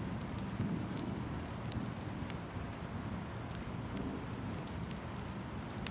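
Steady rain: an even hiss over a soft low rumble, with scattered small ticks throughout.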